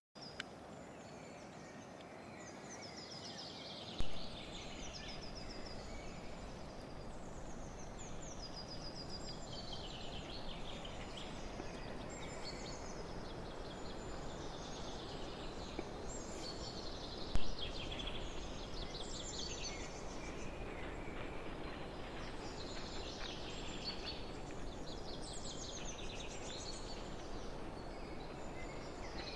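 Small birds singing repeatedly in short, high, downward-sliding chirpy phrases over a steady background hiss, with a sharp click about 4 seconds in and another around 17 seconds.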